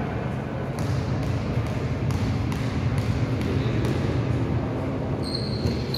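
Basketball bouncing several times on a sports-hall floor, with a low steady hum of hall noise underneath. Near the end a short high squeak comes in.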